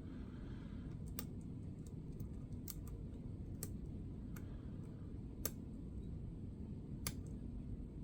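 Light, scattered metallic clicks of a lock pick and tension wrench working the pins of a Master Lock 140 pin-tumbler padlock, roughly one a second, over low steady background noise.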